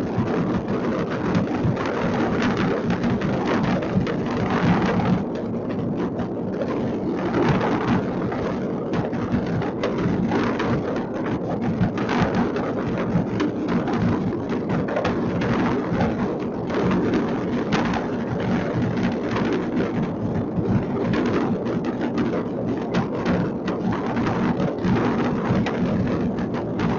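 Many distant fireworks going off at once across a city: a dense, unbroken crackle of bangs with no single burst standing out.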